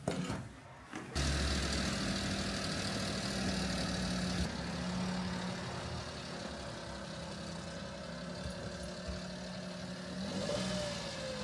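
A few brief knocks, then from about a second in the steady hum of a kei van's engine running.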